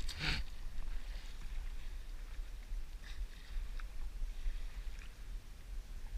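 Stand-up paddle blade stroking through calm sea water: a strong, short splash right at the start, then a few fainter splashes, over a steady low wind rumble on the microphone.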